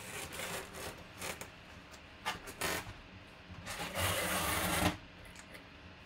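A framed photo and its cardboard box being handled: a few short scrapes and rustles, then a longer scraping rub of about a second starting near four seconds in.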